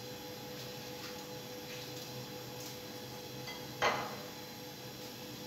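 Green chillies being slit by hand with a kitchen knife: a few faint ticks over a steady low hum, and one sharp knock about four seconds in.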